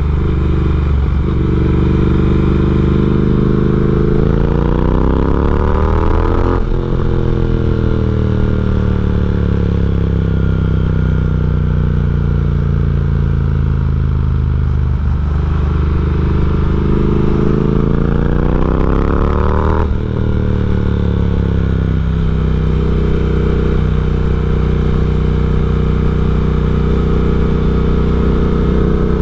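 Triumph Speed Twin's parallel-twin engine under way through a de-catted X-pipe and aftermarket slip-on exhaust. The engine note climbs, breaks off sharply about six and a half seconds in, sinks slowly, climbs again and breaks a second time about twenty seconds in, then holds fairly steady near the end.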